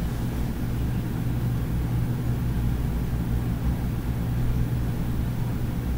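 Steady low hum under a faint hiss: background room tone with nothing else happening.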